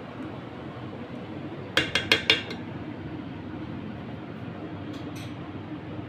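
Stainless steel mixing bowl clanking four times in quick succession about two seconds in, as fish fillets are worked through a marinade, over a steady background hum. A couple of fainter knocks come around five seconds.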